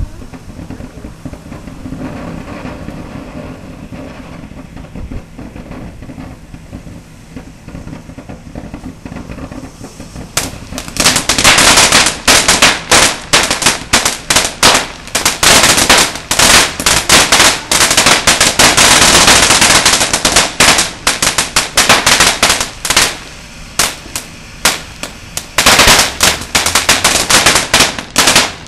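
Ground fountain firework hissing, then about ten seconds in breaking into a long, rapid run of loud crackling pops that goes on until just before the end.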